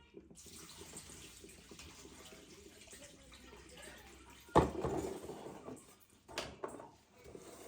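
Tap water running steadily into a kitchen sink, then a single loud clunk about halfway through, like a dish or pan set down, followed by a couple of lighter knocks near the end.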